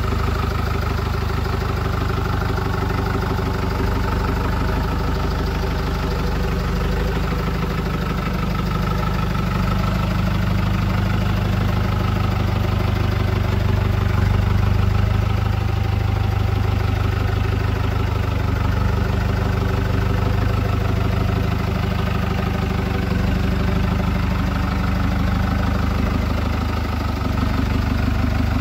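Troller 4x4's engine running steadily at low revs as it crawls over rough ground, swelling a little about halfway through.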